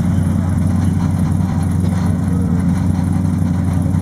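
Mercedes SLS AMG GT3's V8 engine idling steadily. The uploader describes this car as sputtering a little at idle.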